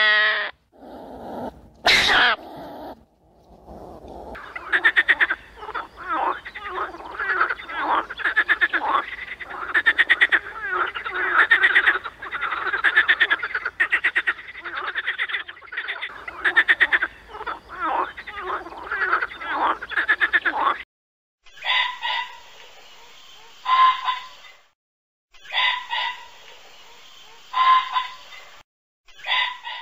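A chorus of frogs croaking in quick, overlapping pulses for about seventeen seconds, stopping abruptly. After that, a different animal gives short calls repeated about every two seconds.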